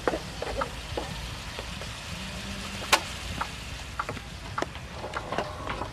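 Greens stir-frying in a pan: a steady sizzle with scattered clicks and scrapes of a metal utensil against the pan, and one sharper clack about three seconds in.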